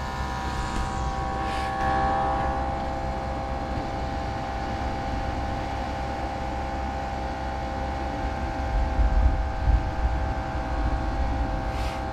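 A small pump motor humming steadily with an even whine, over a low rumble of wind and sea.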